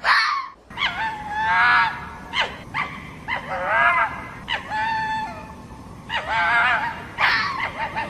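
Fox giving a series of about eight short, high-pitched whining calls that waver up and down in pitch.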